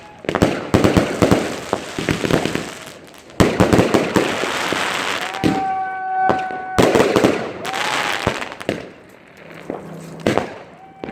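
Fireworks going off: dense crackling and popping with sharp bangs, thinning out over the last few seconds. A held whistling tone sounds for about a second and a half roughly halfway through.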